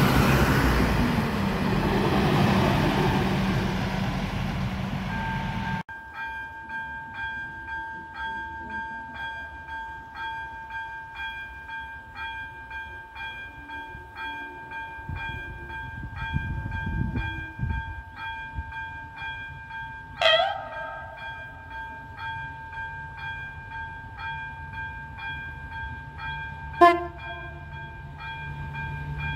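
A GW Train Regio diesel railcar passing close by with loud rolling and engine noise. Then a level crossing's electronic warning bell rings in a steady, evenly pulsed two-tone pattern, while an approaching diesel train sounds two short horn blasts, the second and louder one near the end.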